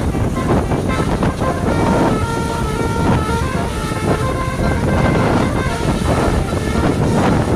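A bus's basuri melody horn playing a tune of short stepped notes over loud engine and road noise, with wind on the microphone.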